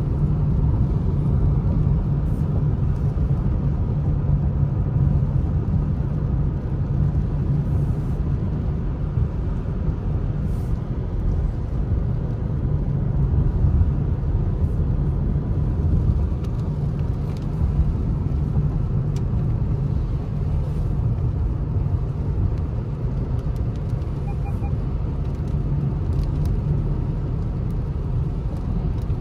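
Steady low rumble of a car driving, heard from inside the cabin, with engine and tyre noise on wet pavement.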